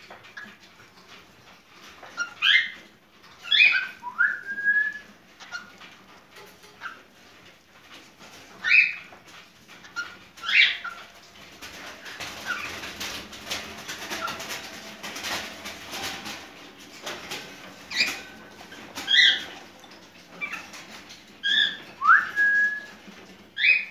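Cockatiel making its breeding-season calls while in heat: short, sharp, high chirps every second or two, a couple of them ending in a quick rising whistle. A few seconds of scratchy rustling fall in the middle.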